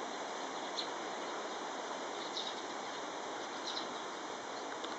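Steady outdoor background hiss with three faint, short, high-pitched bird calls spaced about a second and a half apart.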